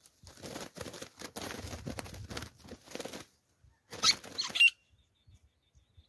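Rustling and crackling in dry grass and brush for about three seconds, then a brief, louder scratchy burst about four seconds in.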